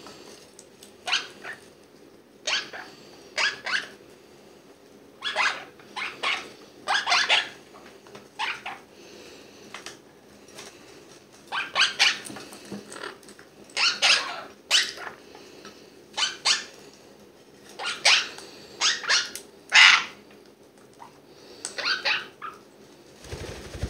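Parrot chicks (young monk parakeets and conures) squawking: short, harsh calls repeated at uneven intervals, often two or three in quick succession.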